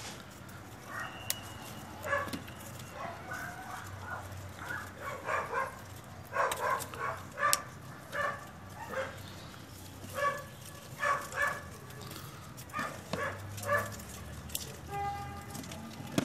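A dog barking repeatedly in short barks, one or two a second.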